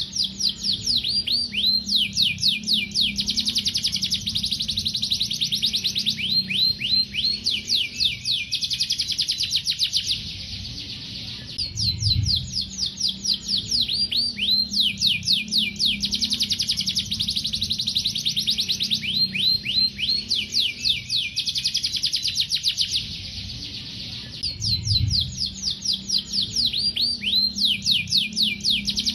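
Canary singing a long, fast song of rapid high trills and rolls, pausing briefly twice, about ten and twenty-three seconds in, before starting again.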